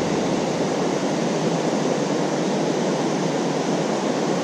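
Steady rush of water from river rapids and a waterfall right beside the microphone.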